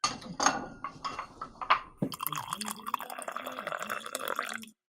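Coffee being poured into a cup: a few sharp clinks and drips for about two seconds, then a steady pour filling the cup that cuts off suddenly near the end.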